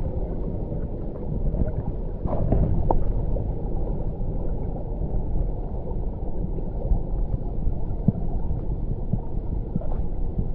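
Steady, muffled low rumble of rushing river water mixed with wind buffeting the microphone, with a few faint ticks about two to three seconds in.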